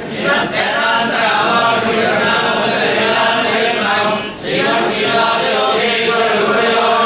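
A group of men chanting together in unison, with a short break for breath about four seconds in.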